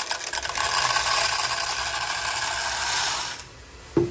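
Shelled corn poured into a grain moisture tester: a dense rattle of many small kernel clicks lasting about three and a half seconds, then stopping sharply. Two brief knocks follow near the end.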